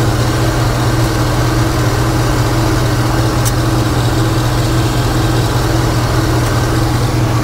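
2007 GMC Yukon's V8 engine idling steadily, heard close up in the open engine bay.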